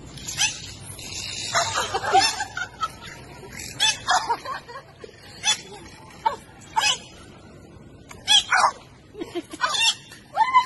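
Bottlenose dolphin making a series of short, high squeaky chirps and whistles, many sliding up or down in pitch.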